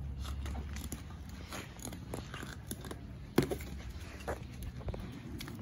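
A dog's claws tapping and scuffing on paving slabs as it scampers about playing with a balloon, with scattered light knocks and one sharp knock about three and a half seconds in.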